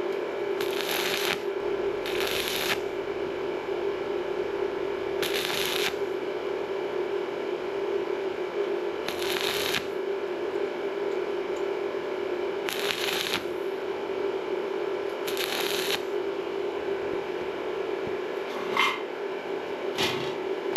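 Stick-welding arc from a 2 mm 6013 electrode at 60 amps, struck in short crackling stitches on thin sheet steel: about six bursts of half a second or so, a couple of seconds apart, over a steady hum.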